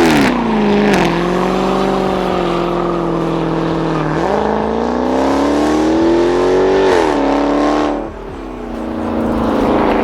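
Dodge Charger's V8 engine running under load, its pitch falling, holding, then climbing steadily for about three seconds before dropping off as the throttle is let go.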